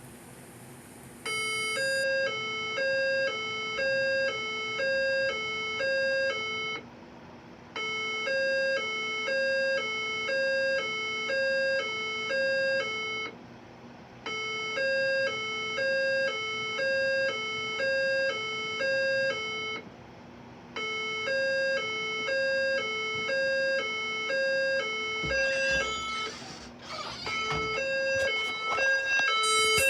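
Fire alarm speakers sounding their evacuation signal tone: a high and a low chime tone alternate, one high tone a second, in four runs of about five seconds with short pauses between. This is the alert tone that comes before the recorded voice message. Near the end a noisy rush and clatter joins in under the tones.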